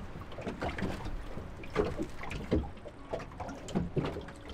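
Small waves lapping against the hull of a small open boat, with scattered light knocks and rustles.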